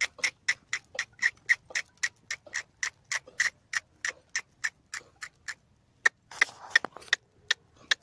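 A herder's rapid tongue clicks, about four a second, urging a herd of goats along. The clicking breaks off briefly a little past five seconds in, and a short hiss comes just after six seconds before a few more clicks.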